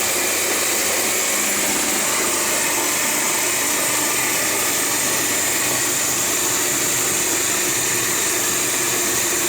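An old Zach Parkes coffee grinder running steadily, grinding coffee to a fine grind.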